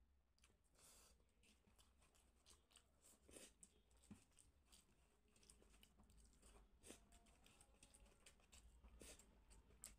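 Faint eating sounds: fingers working rice against a steel plate and chewing, heard as many small, soft clicks.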